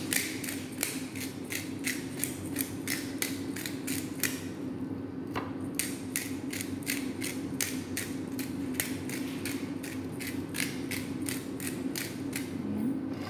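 Disposable glass pepper grinder cracking whole black peppercorns as it is twisted by hand: a steady run of sharp ratcheting clicks, about three a second, with a short pause about four and a half seconds in before the grinding resumes.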